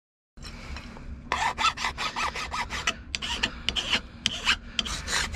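Hand metal file rasping along the cut edge of an aluminium strip in quick repeated strokes, about three a second, deburring it. Before the filing starts, in the first second, a cordless drill bores into the strip.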